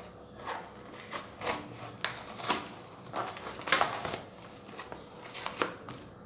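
Packaging being handled: irregular rustling and crinkling with a few sharp clicks and knocks as items are taken out of a box.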